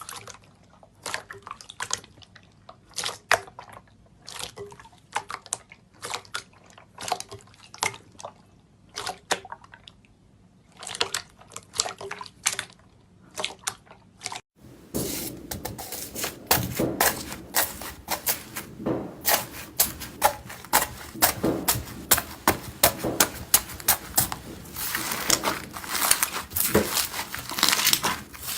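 Slime being squeezed and pressed by hand, making wet clicks and pops in short groups. About halfway through, it cuts to a denser, steady crackling and popping of slime being worked.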